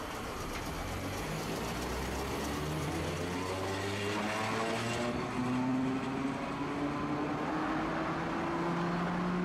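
Tosaden streetcar running on its rails, its electric traction motors giving a whine that rises slowly in pitch as the tram gathers speed, over a low rumble.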